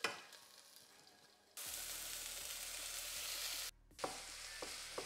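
Chopped leek sizzling in hot olive oil in a pan, a steady hiss that starts suddenly about a second and a half in and breaks off briefly near the four-second mark. When it resumes, a few sharp knocks of a utensil stirring in the pan.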